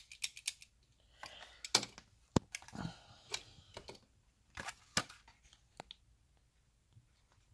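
Small clicks and crinkles from handling a plastic Bakugan figure and its clear plastic wrapper, with a few sharper ticks and taps as the figure is set down on a wooden tabletop.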